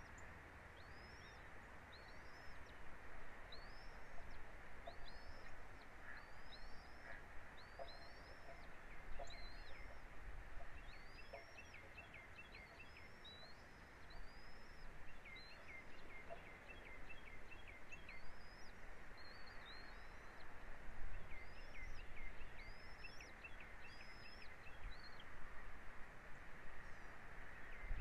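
A bird calling a long series of short, high chirps, each rising and falling, repeated about once a second and joined by quick lower notes in the middle stretch, over a steady outdoor noise such as wind.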